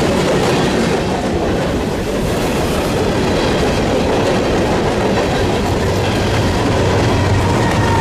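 Union Pacific coal train's hopper cars rolling steadily past on the rails, with the wheels' rumble and rattle. A low engine drone comes in near the end.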